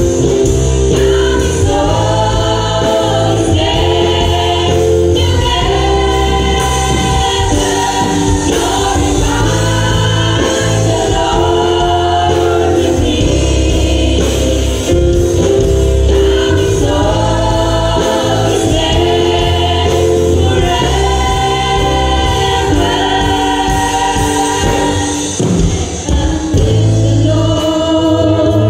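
Women's choir singing a gospel hymn in long held phrases, over an accompaniment with a deep bass line.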